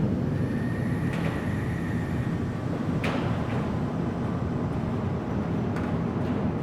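Low, steady rumbling drone of a horror soundscape, with a faint thin whistling tone over the first two seconds and a sharp click about three seconds in, then a few softer clicks near the end.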